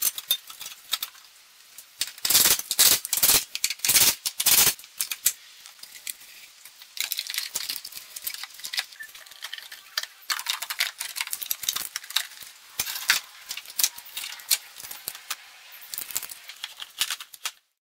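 Hard plastic and metal parts of a car's battery tray, air filter box and battery being handled and fitted back into the engine bay: a few loud knocks in the first few seconds, then quicker, lighter clicking and rattling, which stops suddenly near the end.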